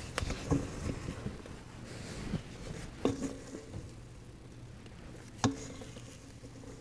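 Silicone spatula scraping sticky bread dough out of a stainless steel mixing bowl, quiet, with three short knocks against the bowl.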